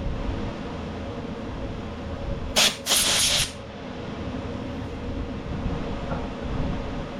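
Two blasts from a compressed-air blow gun, a short puff and then a longer hiss of about half a second, blowing old dry dirt out of a mower's drive gear housing.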